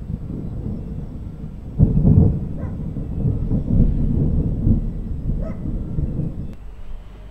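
Thunder rumbling, with a fresh, louder peal breaking about two seconds in that rolls on for several seconds and dies down near the end.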